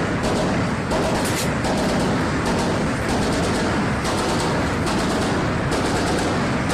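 Steady loud rushing rumble of wind and machinery on a warship's deck, with no gunfire.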